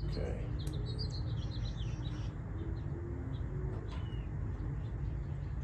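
Small birds chirping in short, scattered high calls, busiest in the first second or so, over a steady low rumble.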